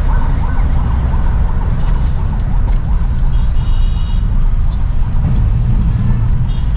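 Heavy low rumble of a local bus's engine and road noise heard from inside the cabin, with a high, steady vehicle horn sounding for about a second midway and again at the end.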